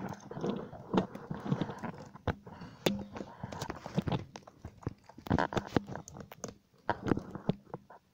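Handling and movement noise: irregular knocks and clicks with rustling in between, loudest around one second in and again between five and six seconds in.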